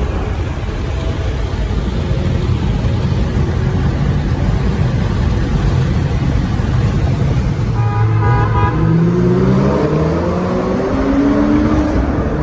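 A car under way with steady engine and road rumble. About eight seconds in there is a short horn-like toot, and then the engine revs up, its pitch climbing steadily over the last few seconds.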